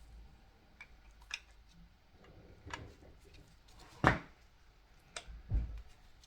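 Light clicks and knocks of metal engine parts being handled while a connecting rod cap is fitted, a few scattered taps with the loudest knock about four seconds in.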